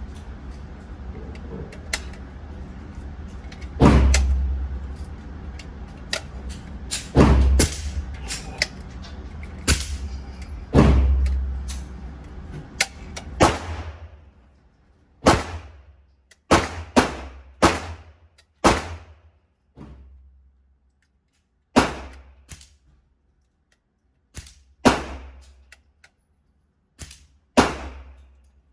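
Gunshots from a 7.62x39 AR pistol fired at the range. In the first half come single shots a few seconds apart, the loudest with a heavy low boom. From about halfway, shots come more quickly, roughly one a second, in short strings with gaps between.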